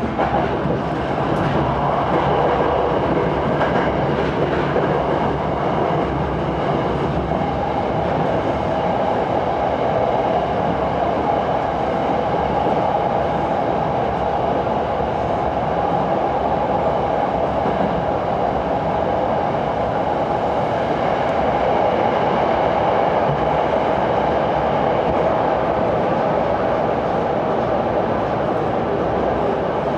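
Electric commuter train running, heard from inside the front car: steady running noise of wheels on rails, with a steady whine joining in about eight seconds in.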